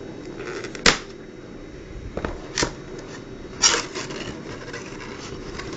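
Hands handling and opening a cardboard phone box: a few sharp taps and knocks, the loudest about a second in, and a short scraping rustle a little after the middle, over a steady low hum.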